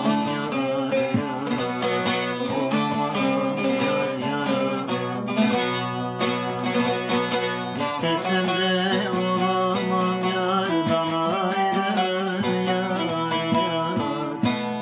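Bağlama (saz), the Turkish long-necked lute, played with rapid pick strokes, the melody ringing over steady drone notes from the other strings.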